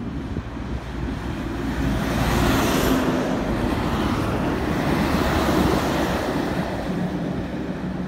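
Articulated truck passing close at highway speed: engine rumble and tyre rush build, stay loud through the middle as it goes by, then fade near the end, with wind on the microphone.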